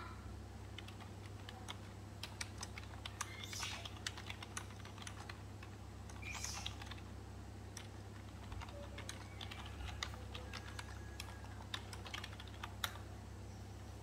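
Faint, irregular light clicks and taps, like fingers typing or tapping, with brief soft rustles about four and six and a half seconds in, over a steady low hum.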